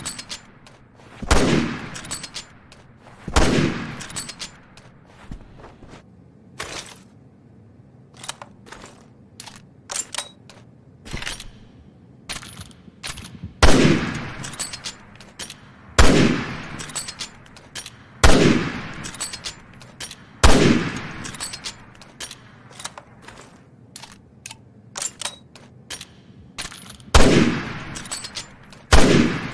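SIG-Sauer SSG 3000 bolt-action sniper rifle firing about eight loud shots, each followed by a decaying echo. The shots come in groups about two seconds apart, with quieter sharp clicks in between.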